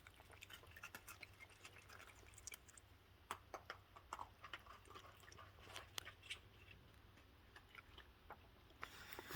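Faint raccoons chewing cookies: scattered, irregular crunches and clicks.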